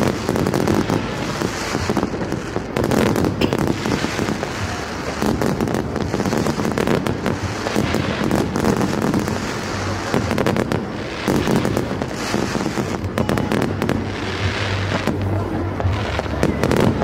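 Aerial fireworks display: a continuous barrage of shell bursts, a dense string of bangs and pops packed close together.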